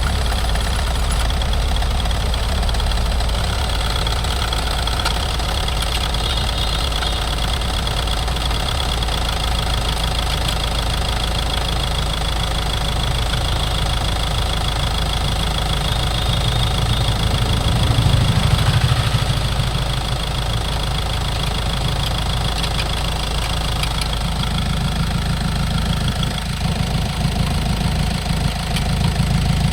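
Mahindra BS6 diesel engine idling steadily with a diesel clatter, briefly getting louder about eighteen seconds in.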